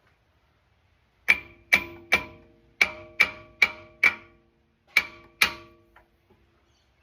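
Nine sharp metal-on-metal hammer blows, each ringing briefly, in uneven groups of three or four: knocking the old front diff pinion flange off its splines.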